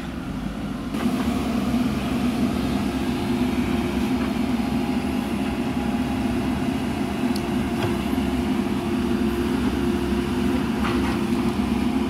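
JCB 3DX backhoe loader's diesel engine running steadily under load while the backhoe digs, growing louder about a second in.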